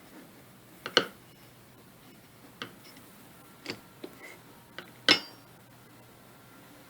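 Sharp, separate clicks and knocks of small hard parts being handled, about seven in all, the loudest about a second in and about five seconds in. They are consistent with the metal parts of a CO2 air pistol being worked during disassembly.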